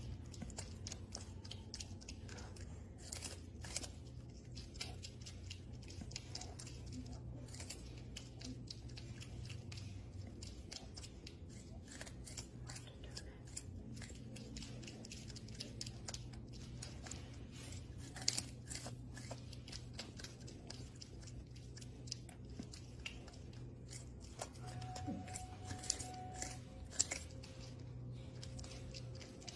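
Baby prehensile-tailed porcupine gnawing kernels off a cob of corn: quick, sharp crunching clicks in irregular runs.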